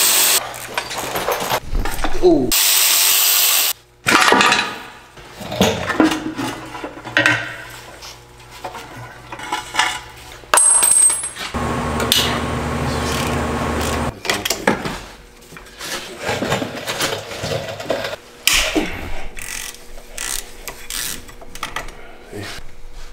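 Hand tools working on a BMW engine's underside: ratchet clicking, metal clinks and scrapes on the bolts and oil pan as the pan is taken off to reach the rod bearings. A steadier whirr of a couple of seconds comes about twelve seconds in.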